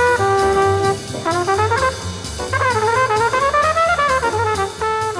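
Jazz trombone soloing over a piano, double bass and drums group, playing a melodic line of short notes, a held note and phrases that bend up and down in pitch, over a steady beat.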